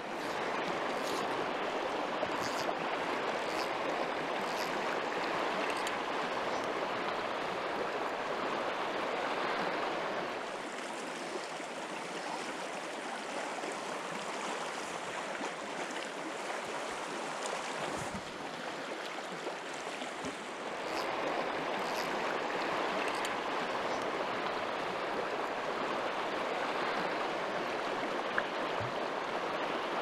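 A shallow, rocky river rushing steadily over its riffles. The rush drops a little in level from about ten to twenty seconds in.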